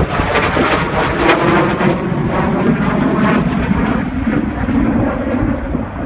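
Jet roar of a US Air Force Thunderbirds F-16 fighter flying overhead, loud and steady, growing duller toward the end as the high end drops away.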